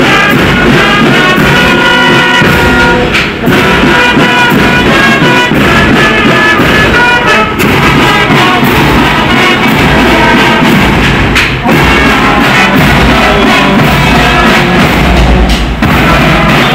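Live brass band with saxophones and a sousaphone playing a tune, loud and continuous.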